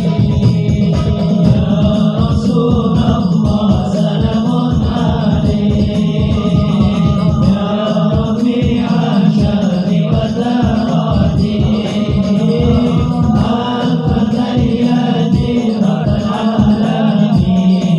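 Sholawat: Arabic devotional chanting in praise of the Prophet Muhammad, sung over a steady rhythmic beat.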